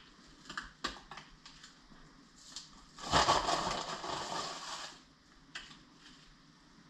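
A bag of light brown sugar crinkling and rustling as a hand digs into it, loudest from about three to five seconds in. Before that, a few light taps and rustles of brown sugar being sprinkled and patted onto a pork butt.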